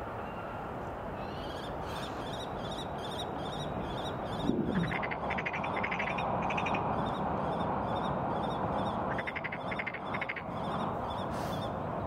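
Female common kestrel calling: two drawn-out trilled whines, about five and nine seconds in, among a steady run of short high notes repeated about three times a second. A brief low downward sweep about four and a half seconds in, over a steady background rumble.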